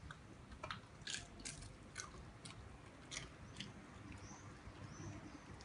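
West Highland White Terrier chewing a crunchy dog snack: a string of sharp crunches about every half second, thinning out after about four seconds.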